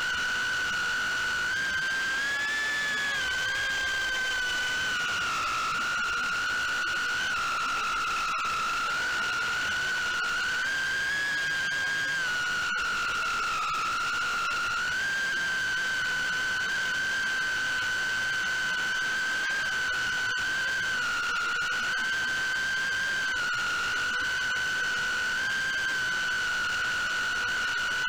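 FPV quadcopter's brushless motors and propellers giving a steady high-pitched whine, the pitch wavering up and down as the throttle changes, with a brief rise about two seconds in.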